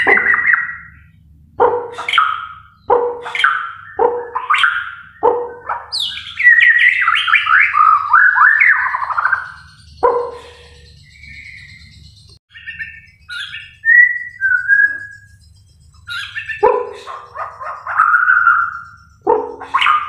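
White-rumped shama singing loudly. It opens with a string of short, sharp notes about one a second, then a long rapid tumbling phrase falling in pitch, a few softer whistles, and another fast rushing phrase near the end. A faint steady low hum runs underneath.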